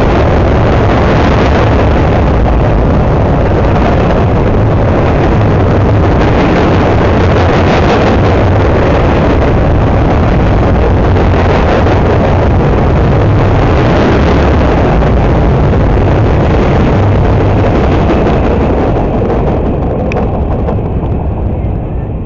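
A train passing close by, a loud steady rumble that begins to fade away near the end.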